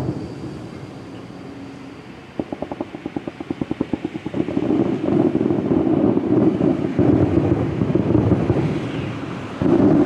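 Aerial fireworks going off: a quick string of short pops a little over two seconds in, then a dense rumble of bursts and crackle, and a sudden loud burst near the end.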